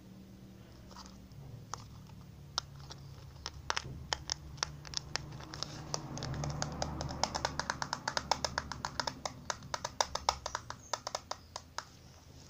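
Fingernails tapping on a hard object: scattered taps at first, quickening about halfway through into a rapid run of several taps a second.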